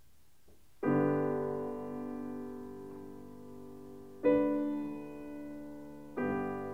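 Slow solo piano music: three chords struck, about a second in, a little past four seconds and near the end, each left to ring and slowly fade.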